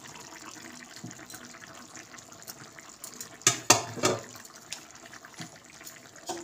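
Pumpkin and potato curry bubbling and simmering in an uncovered aluminium kadai, a steady fine crackle of bubbles. A few sharp knocks come about three and a half seconds in.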